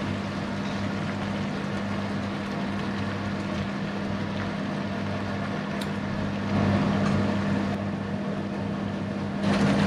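Pan of kalio spice paste sizzling on an electric hob over a steady low hum, growing louder twice as raw chicken pieces are put into it.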